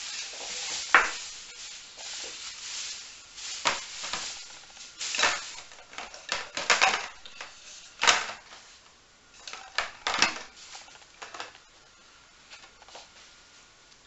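A plastic carrier bag rustling as bottles are taken out of it, then bottles and plastic knocking and clattering as they are packed into a clear plastic storage box, a string of separate knocks that thins out and gets quieter near the end.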